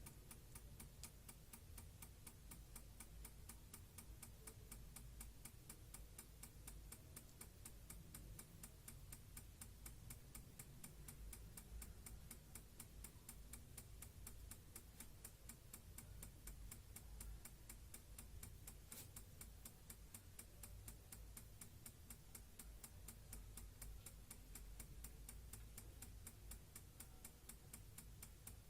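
Faint, rapid, even ticking, several ticks a second, barely above near silence, with one slightly stronger click about two-thirds of the way through.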